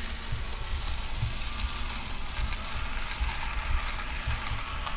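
N gauge model train running on the layout's track: a steady noisy whir and rattle of the small motor and wheels on the rails.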